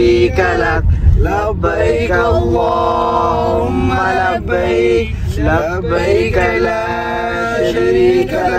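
A man singing a slow melody with long drawn-out notes, over the low steady rumble of a van on the move.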